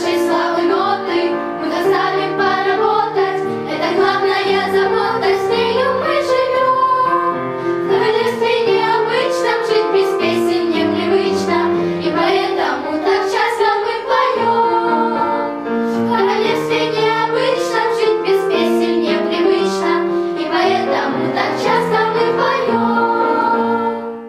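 A song sung by high voices over instrumental accompaniment, stopping right at the end.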